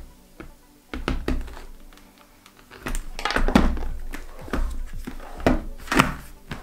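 Irregular plastic knocks and clicks from a motorcycle helmet and its visor being handled and fitted, with the strongest cluster a few seconds in.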